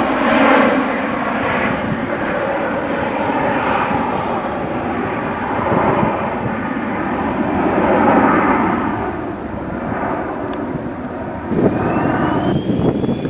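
Twin-engine business jet of the Bombardier Global type climbing out after takeoff: a steady jet roar that swells and fades. Near the end it gives way to a Dassault Falcon 2000's engines on the runway, with a whine that rises in pitch as they spool up.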